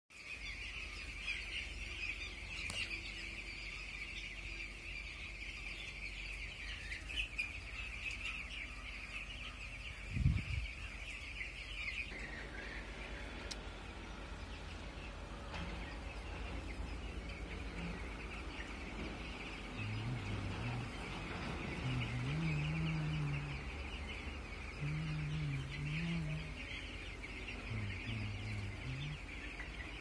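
A flock of broiler chicks peeping constantly, a dense high chorus of cheeps. A single low thump comes about a third of the way in, and in the last third a low, wavering pitched sound comes and goes underneath.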